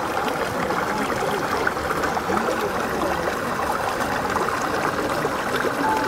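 Shallow rocky stream flowing and splashing over stones, a steady sound of running water.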